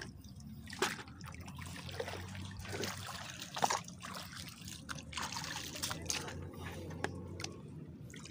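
Shallow water trickling and sloshing as hands grope among mangrove roots, with scattered small splashes and clicks.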